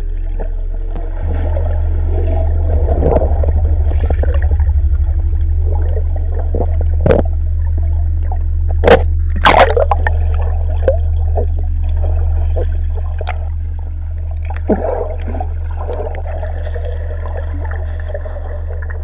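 Muffled underwater sound picked up by an action camera in the sea: bubbles and water gurgling, with a few sharp clicks, the loudest about nine to ten seconds in, over a steady low bass drone.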